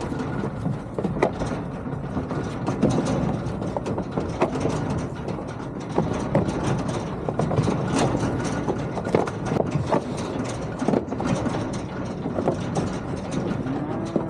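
A vehicle running with a metal livestock trailer rattling and clanking, with frequent short knocks throughout.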